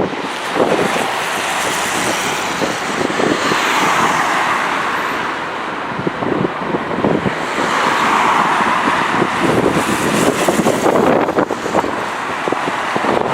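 Passing vehicle noise that swells and fades twice, mixed with wind buffeting the microphone.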